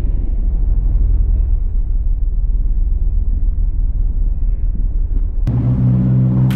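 Jeep Grand Cherokee driving on lake ice, a dense low rumble of engine and tyres. About five and a half seconds in it cuts off suddenly and is replaced by a steady low drone of held tones.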